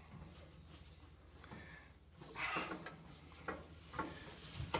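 Faint scraping and a few light knocks as a cast-iron surround side piece is worked into its slots beside a wood-stove insert's door.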